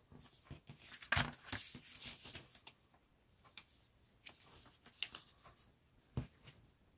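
A sheet of origami paper being folded by hand: dry rustling and crinkling with small taps, loudest about a second in, and one soft knock on the tabletop near the end.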